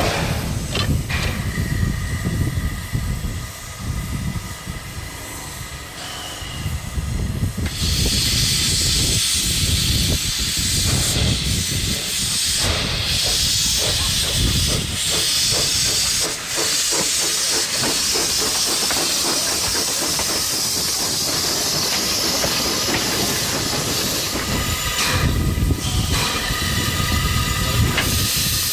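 Two small steam locomotives, D 140 and F 13, coupled together and moving slowly over the track and points. A low rumble and clanking of wheels on rail starts things off. From about eight seconds in comes a loud, steady hiss of escaping steam, and the rumble grows again near the end as the engines pass close.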